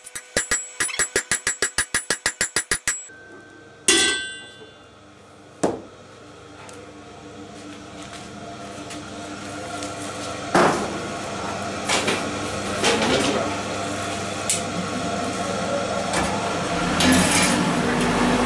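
Blacksmith's hammer striking a hot stainless steel bar on an anvil in a fast run of ringing blows, about six a second, stopping after about three seconds. Then two single ringing clangs, followed by a steady rushing noise from the forge fire that grows louder, with a few metal clinks.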